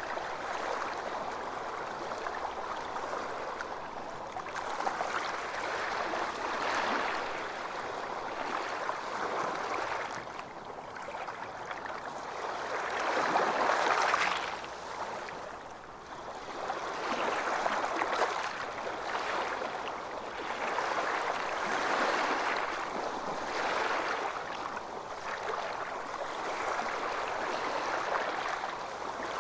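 Calm waves lapping and sloshing, rising and falling in soft swells every few seconds, the largest swell about halfway through.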